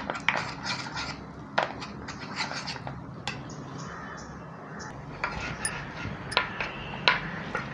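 Steel spoon stirring and scraping a thick gram-flour and lemon-juice paste in a plastic bowl, making irregular clicks and scrapes. The stirring stops for about two seconds in the middle, then starts again.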